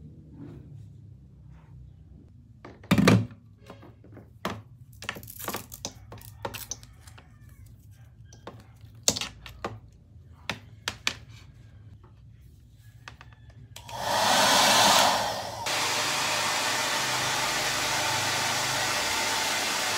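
Scattered knocks and clicks of objects being handled. About two-thirds of the way in, a small blower-type appliance switches on and runs with a steady rushing noise. It is loudest for its first second or so, then holds at an even level.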